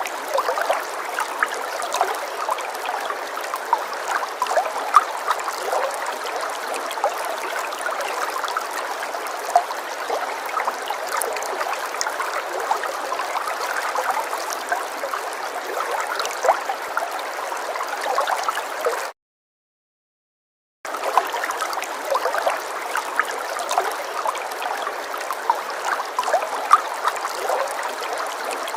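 Falling water splashing and gurgling: a steady rush dotted with many small splashes. It cuts out completely for about two seconds past the middle, then comes back the same.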